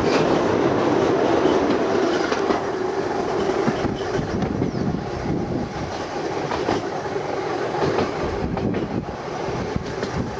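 Seaton Tramway tram running along its track, heard from the upper deck: wheels clattering on the rails over a steady hum that fades about four seconds in.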